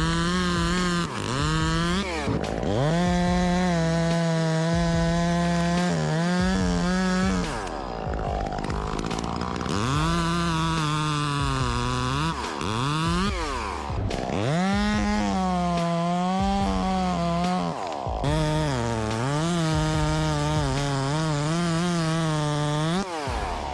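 Gasoline chainsaw running at high revs and cutting wood, its engine pitch dropping and climbing back several times as the chain bites into the cut.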